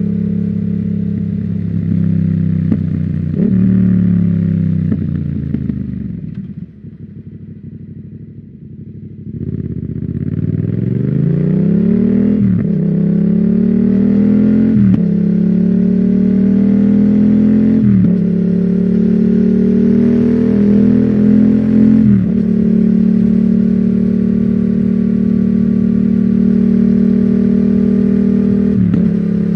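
Yamaha MT-07's 689 cc parallel-twin through an Akrapovic full exhaust system. The revs fall away as the bike slows and it idles low for a couple of seconds. Then it pulls away through four upshifts, each a sudden drop in pitch after a rising climb, settles into a steady cruise, and shifts once more near the end.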